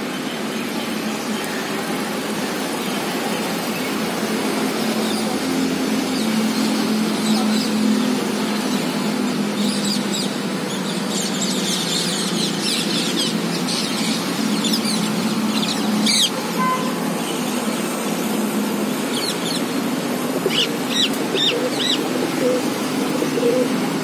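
Bird calls: clusters of quick chirps from about ten seconds in, then a few sharp, falling high-pitched calls near the end. Under them runs a steady hum of city traffic.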